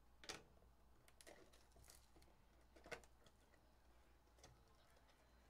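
Faint crinkles and ticks of a cardboard trading-card hobby box being handled and its plastic wrap torn open, a few sharp ones scattered across otherwise near silence.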